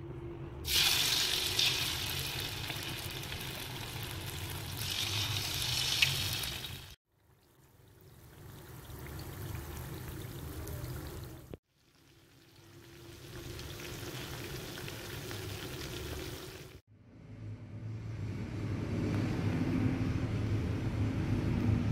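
Potato and corn fritter batter hitting hot oil in a wok, setting off loud sizzling that fills the first six seconds or so. After abrupt cuts the frying goes on more quietly. Near the end a low steady rumble takes over.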